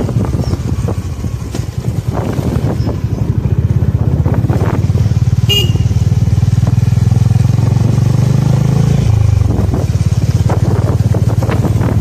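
Engine of a moving vehicle running with a low, rapidly pulsing drone; its note shifts about nine seconds in.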